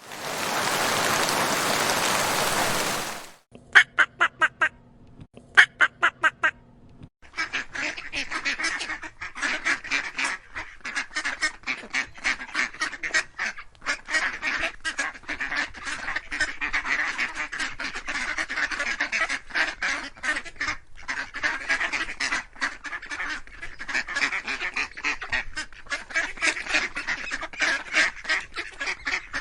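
A loud rushing noise for about three seconds, then two quick runs of about five duck quacks each. From about seven seconds in, a flock of ducks quacks continuously, the calls overlapping.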